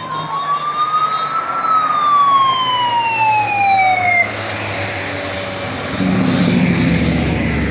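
An emergency siren wails, rising slowly and then falling in one long sweep, and cuts off about four seconds in. Near the end, motorcycle engines pass close by.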